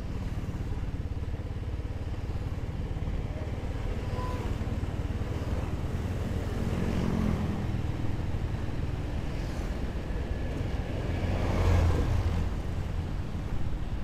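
Motorcycle engine running under way, heard through a helmet-mounted action camera, with a steady low rumble. The engine note climbs about six seconds in as the bike accelerates, and a louder swell comes about twelve seconds in.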